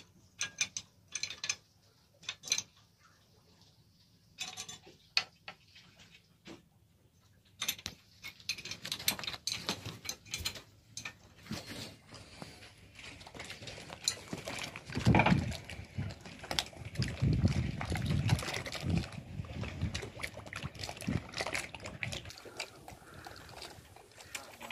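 Sharp metallic clicks of a spanner working the fuel-injector line fittings on a Nissan 2500 cc marine diesel engine. From about eight seconds in, louder and denser knocking and rustling of handling, with heavier low thumps in the middle.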